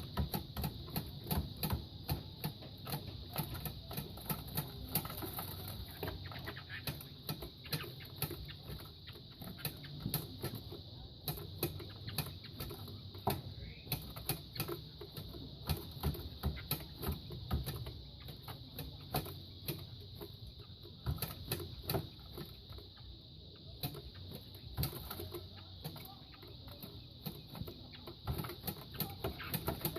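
Two gamecocks fighting: a quick, irregular run of thumps and clicks from pecks, kicks and wing strikes, over a steady high-pitched whine.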